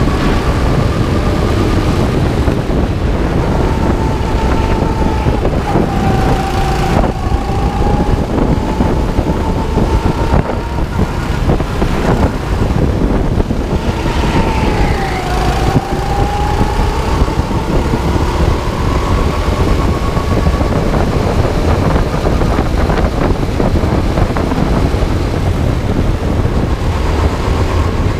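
9 hp go-kart engine running hard under a heavy low rumble of wind and vibration. Its whine drops in pitch twice, about six and fifteen seconds in, as the kart slows for corners, then climbs again as it accelerates.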